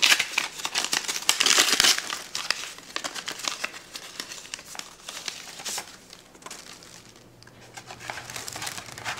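Paper packaging and a small card envelope crinkling and rustling in the hands as a gift package is unwrapped. The rustling is loudest in the first two seconds, then continues more softly.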